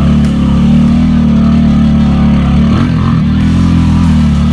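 ATV engine running at steady revs while wading through deep water, with a brief dip and recovery in revs about three seconds in.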